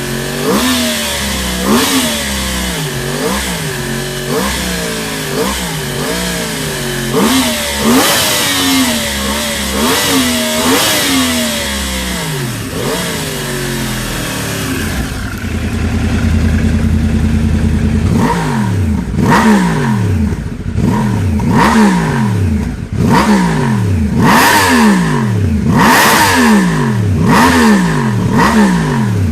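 Yamaha R1 crossplane "big bang" inline-four engine revved in repeated throttle blips, each a quick rise in pitch that falls back, about one a second. About halfway through it holds a steady, even run for a few seconds, then the blips start again.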